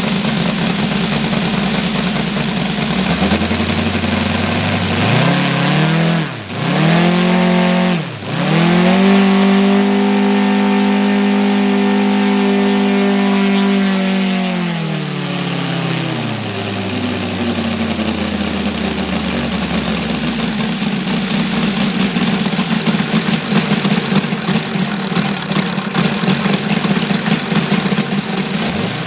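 OS FR5-300 five-cylinder radial model engine running, then throttled up with two quick dips in revs, held at high revs for several seconds, and throttled back down to a lower, uneven, lumpy idle.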